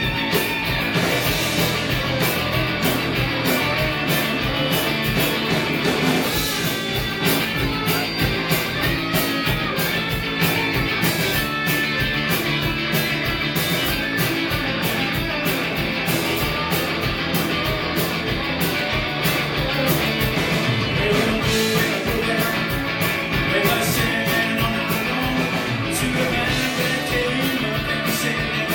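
Live rock band playing a song: guitars over drums, with cymbal hits keeping a steady beat.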